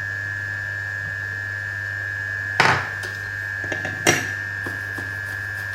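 Steady electrical hum with a high whine from the repair bench equipment, broken by two sharp clicks of small tools on the workbench about two and a half and four seconds in, with a few fainter ticks between.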